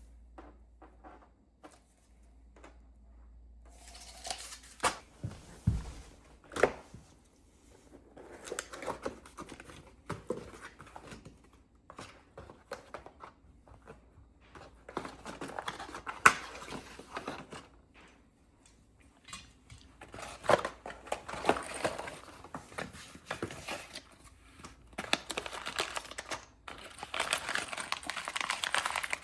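Unpacking and handling noises: plastic wrapping crinkling and tearing in irregular stretches, with sharp clicks and knocks of hard parts being handled and set down, likely the parts of a TV wall mount.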